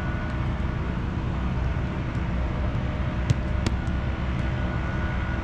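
Steady low outdoor rumble, with two sharp knocks a little over three seconds in, about half a second apart: soccer balls being struck during shooting drills.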